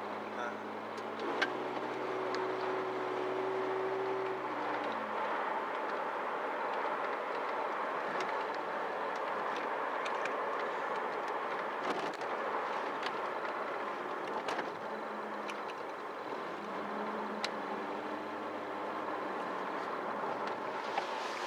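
Cabin noise of a Toyota Mark II-based car on the move: tyre and road noise under the hum of its 2.5-litre engine, which grows stronger about a second and a half in and again near the end. A few light clicks and knocks from bumps come through now and then.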